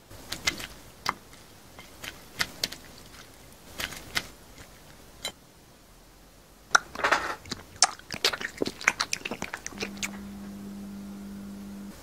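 Close-miked crunching and chewing of food: a few sharp crunches, then a fast, dense run of crisp crunches about seven seconds in. Near the end a steady low tone comes in.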